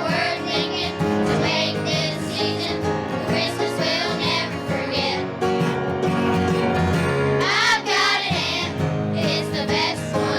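Young voices singing a song with instrumental accompaniment.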